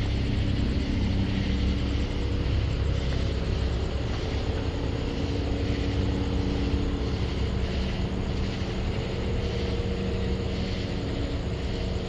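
Steady low mechanical rumble with a hum that shifts in pitch over a few seconds, over a pulsing chorus of night insects buzzing in the higher background.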